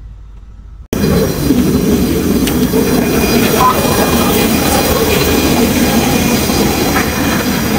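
A low rumble inside a moving bus for about the first second, then, after a sudden cut, loud steady jet-aircraft noise at close range: a broad rush with a steady high whine running through it.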